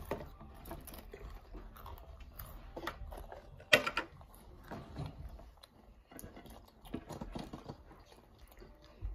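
Children crunching and chewing saddle-shaped potato chips, a run of irregular crisp crackles with one sharp, loud crunch a little under four seconds in.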